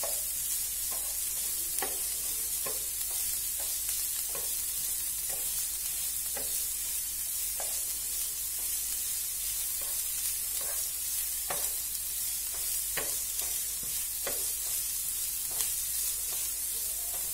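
Sliced onions sizzling steadily in hot oil in a frying pan. A spatula scrapes and taps the pan about once a second as they are stirred.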